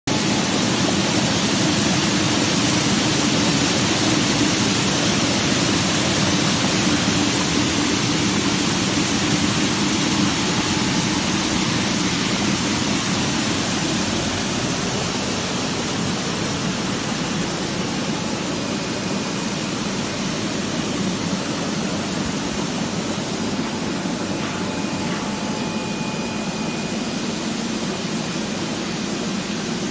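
Chinese cabbage air-bubble washing machine running: a steady rushing noise of machinery and churning, bubbling water, getting slightly quieter over time.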